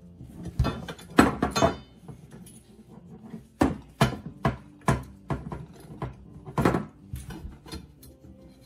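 Steel handle tubes and bolt hardware of a push reel mower handled during assembly: irregular metallic knocks and clicks. There is a quick cluster about a second in, then single knocks a half second or so apart in the middle.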